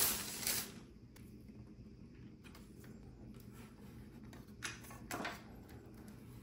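Plastic wrapping rustling as it is pulled off the desk lamp, stopping about a second in. Then quiet handling, with a couple of faint knocks near the end as the lamp's folded arms are swung open.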